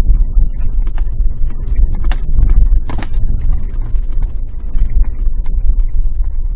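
Suzuki Jimny Sierra driving over a dirt and gravel forest road, heard from its dashcam. There is a steady low rumble with frequent small clicks and rattles, and a thin high squeak comes and goes near the middle.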